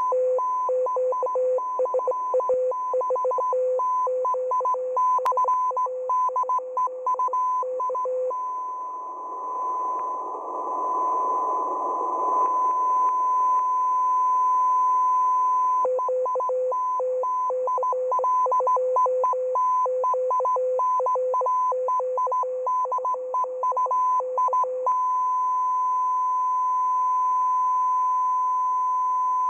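Russian M42b shortwave signal received in CW mode: tones near 1 kHz and 500 Hz keyed in fast, irregular on-off bursts, twice giving way to a long steady unbroken tone, with a swell of static hiss around ten seconds in.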